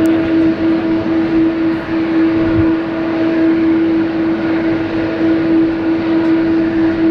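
Boeing 777-300 airliner rolling out on the runway after landing. Its twin jet engines give a steady loud rush of noise with a constant droning tone running through it.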